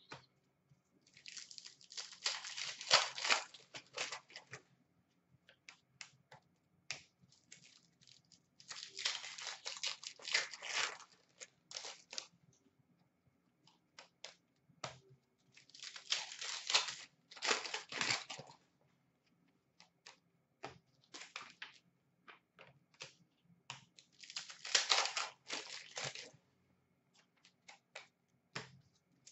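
Foil trading-card packs being torn open and crinkled, in four separate bursts a few seconds apart. Short clicks and taps of the cards being handled come in between.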